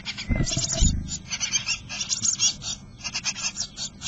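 Eurasian blue tit nestlings in a wooden nest box giving rapid, high-pitched begging calls, many short calls a second. About half a second in, two low thumps and scratching come from birds moving against the box.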